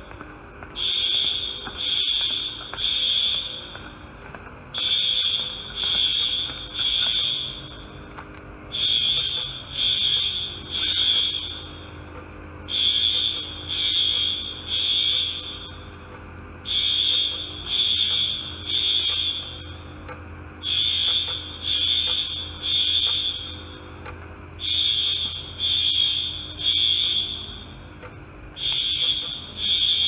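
Wheelock AS fire alarm horns sounding the temporal-three evacuation signal: three short blasts, a pause, repeating about every four seconds, with a steady low hum beneath. The fire alarm system is in alarm after a pull station was activated for testing.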